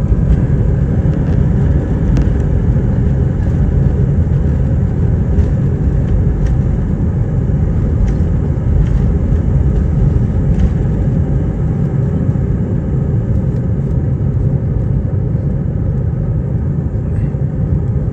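Airbus A320 taking off, heard from inside the cabin: a loud, steady deep rumble of the engines and airframe, with a faint steady whine above it.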